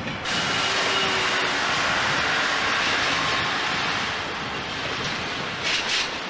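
Train rolling slowly through a station: a steady hiss of wheels on rail with faint thin squealing tones, and a few sharp metallic clicks near the end.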